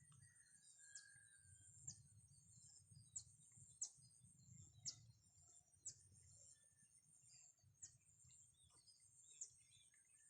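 Faint outdoor ambience: a steady high insect drone with short, quick descending bird chirps about once a second, over a low rumble.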